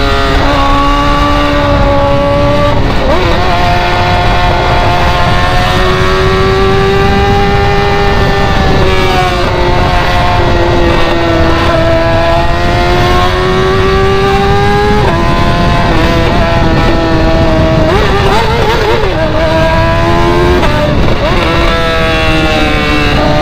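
BMW with a very loud exhaust, running hard at high revs while driving. Its note drones steadily and its pitch steps down or up several times as gears change and the throttle shifts.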